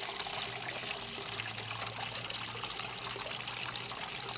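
Water running and trickling steadily, as from a small waterfall.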